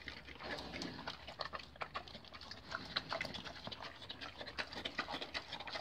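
Pig eating slop from a feed bowl, chewing and smacking: a quick, irregular run of wet clicks.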